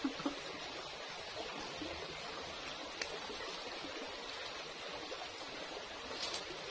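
Shallow stream running over rocks, a steady rush of water, with a couple of faint clicks about three seconds in and near the end.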